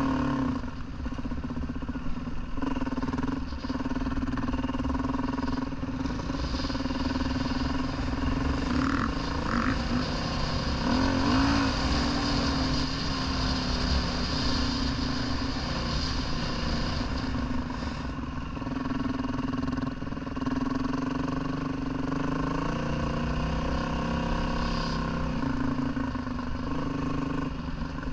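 Dirt bike engine running under way, its note rising and falling as the throttle changes.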